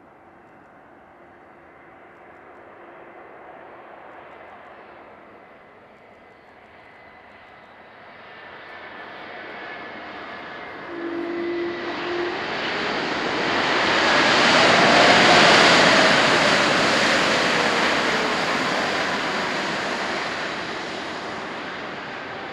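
Airbus A320neo jet airliner with Pratt & Whitney PW1127G-JM geared turbofan engines coming in to land and passing the microphone: its engine noise builds steadily to a peak about fifteen seconds in, a whining tone drops in pitch as it goes by, and then the sound fades away.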